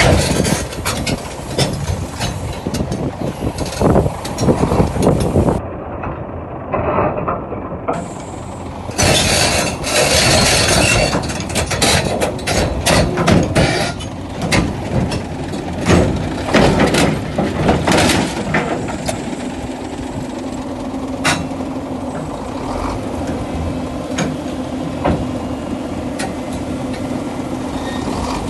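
Excavator's diesel engine running while its steel tracks clank and knock, as when it is driven up onto a lowloader trailer. The clanking stops about two-thirds of the way through, leaving a steady engine hum.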